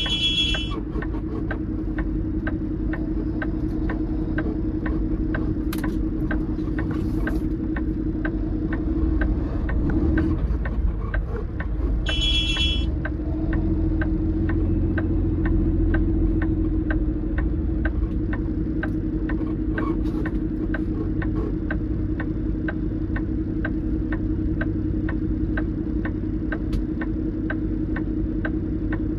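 Semi truck's diesel engine running with a steady drone, under an even ticking of roughly two ticks a second. Two short high beeps sound, one right at the start and one about 12 seconds in.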